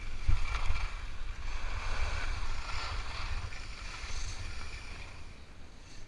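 Skis sliding and scraping over firm groomed snow, a rushing hiss that swells and fades with the turns, over a low rumble of wind buffeting the microphone.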